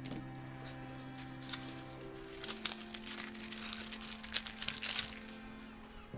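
Plastic model-kit packaging crinkling and rustling as it is handled, a burst of crackly clicks for about two and a half seconds midway, over soft background music with long held notes.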